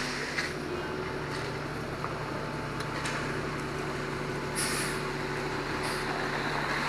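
Concrete mixer truck engine running steadily, with a brief hiss of air about four and a half seconds in.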